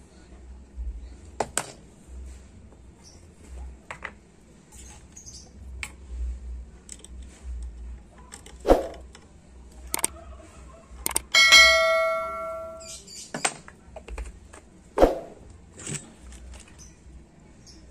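Small metal tools clicking and tapping on a workbench during circuit-board rework. About eleven seconds in, a metal object strikes metal and rings clearly for about a second and a half, the loudest sound here.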